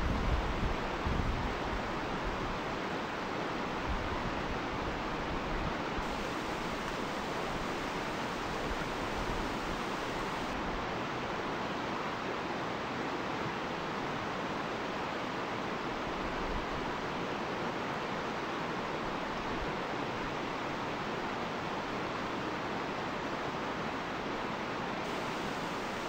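Shallow river rapids rushing over rocks: a steady, even rush of water. A few low thumps come in the first second or two.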